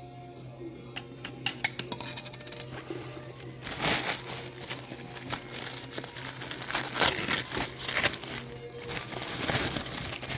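A few light clicks and taps of small items being handled, then packaging crinkling and rustling steadily from about four seconds in as an individually wrapped cookie cutter or embosser is unwrapped.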